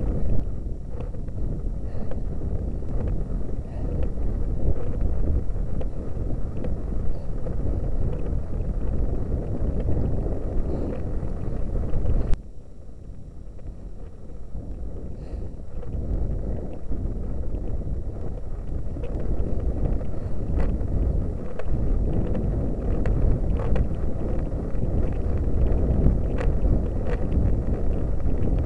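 Wind buffeting the microphone of a camera riding up a hill road, a dense low rumble with scattered small clicks. The rumble drops away suddenly about twelve seconds in, then builds back up over the next few seconds.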